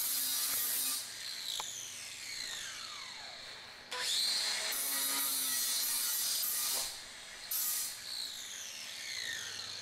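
Angle grinder cutting into a stainless steel table, a steady high hiss. It is switched off about a second in and again near seven seconds, each time winding down in a falling whine, and spins back up just before four seconds in. The user finds the grinder not really strong enough for this stainless steel and uses it only to get the hole started.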